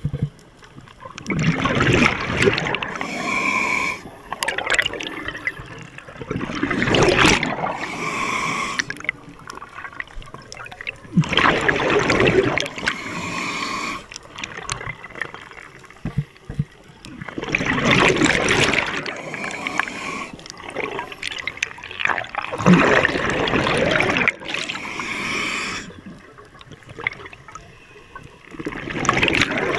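A scuba diver breathing through a regulator underwater: bursts of gurgling exhaled bubbles about every five seconds, with quieter hissing between them.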